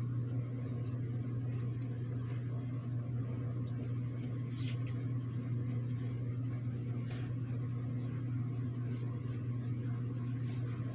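Steady low machine hum at an even level, with a few faint ticks over it.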